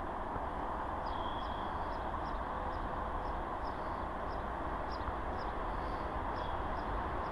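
Steady rumble of a distant approaching freight train of tank wagons hauled by a VL80S electric locomotive, with short high chirps repeating about three times a second from about a second in.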